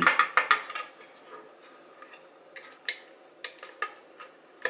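Small clicks and ticks of hands handling plastic connectors and wiring: a quick run of clicks at the start, then scattered single clicks.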